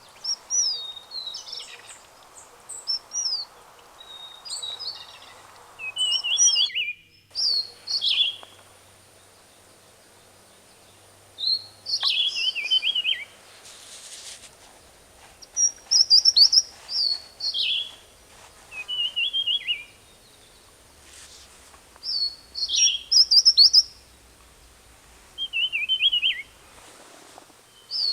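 A songbird singing short, high, slurred phrases over and over, with pauses of a second or two between them. The song drops out briefly about seven seconds in.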